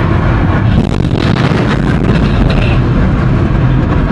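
Missile launch from a warship's deck launcher: a loud, steady rushing roar of rocket exhaust.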